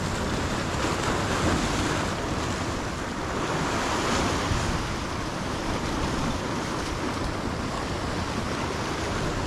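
Surf breaking and washing over rocks below, a steady rushing wash that swells and eases slowly, with wind buffeting the microphone.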